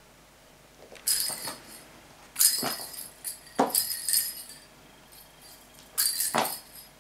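Small pink jingle-bell cat toy balls rattling and clattering on a hard floor as a kitten bats them, in four short bursts of bright jingling.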